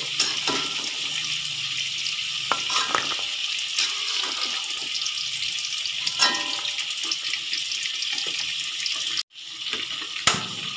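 Hot oil sizzling steadily in a wok as fried tofu cubes are scooped out with a metal spatula, which clinks and scrapes against the wok a few times. Near the end the sound cuts out briefly, then comes one sharp clink.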